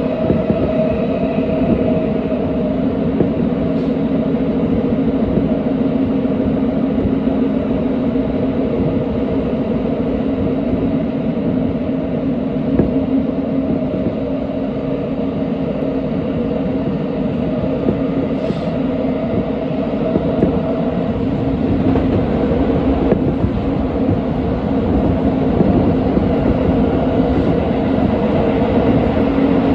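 Tokyo Metro 17000 series subway train running at speed through a tunnel, heard from inside the car. A continuous rumble of wheels on rail with a steady hum under it, growing slightly louder toward the end.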